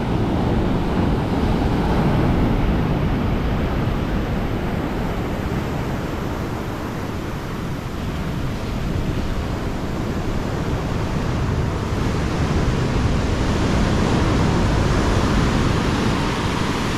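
Rough ocean surf breaking and washing up a sand beach: a continuous rush that swells, eases, then swells again.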